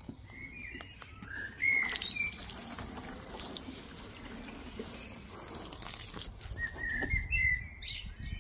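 Small garden birds chirping and singing in short high phrases, near the start and again near the end, over a rushing hiss that swells about two seconds in and is the loudest sound for several seconds.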